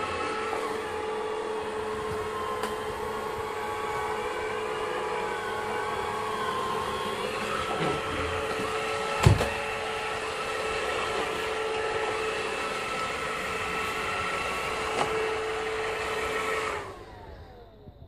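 E.ZICLEAN Slim Series robot vacuum running steadily, its suction motor and brushes giving a constant whirring hum. There is a sharp knock about nine seconds in and a couple of lighter clicks. Near the end it cuts out, its whine falling as the motor spins down.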